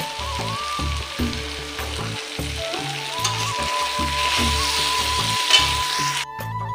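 Spiced ridge gourd pieces frying in oil in a metal kadai, sizzling steadily while a spatula stirs and scrapes through them: the masala is being fried down until the oil separates. Background music with a steady beat plays along.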